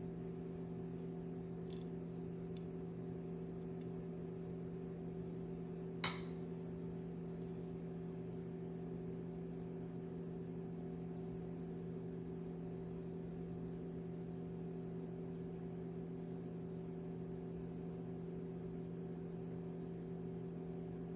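A steady low hum made of several held tones, with one sharp tap about six seconds in and a couple of fainter ticks.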